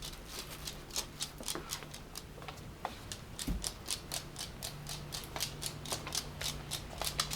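A dachshund lapping water from a bowl: quick wet clicks at about four to five a second, with one low thump about three and a half seconds in.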